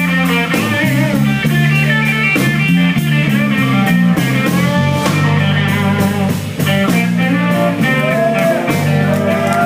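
Live blues band playing: a guitar lead with bent notes over held bass notes and a drum kit.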